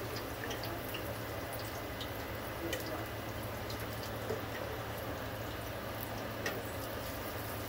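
Hushpuppy-battered chicken wings frying in hot oil in an electric deep fryer: a steady sizzle with a few small pops.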